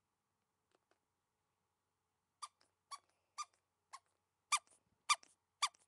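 Moshi Monsters Squashy Beastie squeeze toy squeaking as it is squeezed by hand. There are seven short squeaks, about half a second apart, starting a couple of seconds in and getting louder toward the end. The squeak is not very loud.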